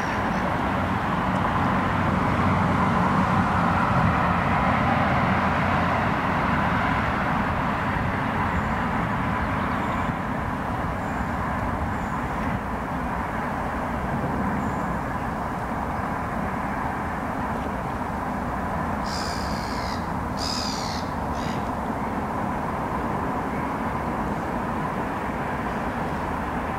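Steady outdoor background rumble with a faint steady hum. Around three quarters of the way through comes a short cluster of harsh bird calls.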